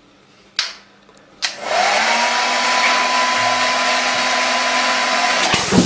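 Handheld hair dryer switched on: after a click, the motor starts about a second and a half in with a rising whine that settles into a steady blowing hum. It stops shortly before the end.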